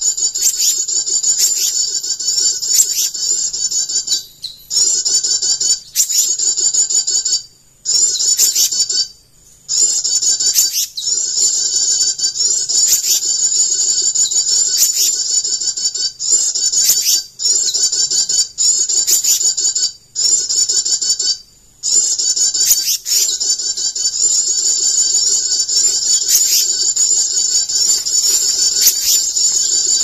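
Dense, high-pitched bird chirping and trilling, steady and continuous, with sharp repeated chirps over it. It breaks off abruptly into silence several times.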